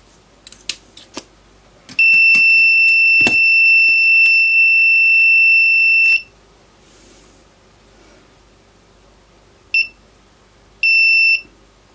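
Soldering station beeping a high, steady alarm tone: one long beep of about four seconds, then a brief beep and a half-second beep near the end. The owner takes the beeping as a sign that the freshly fitted T12 tip has an issue. A few light clicks come just before the long beep.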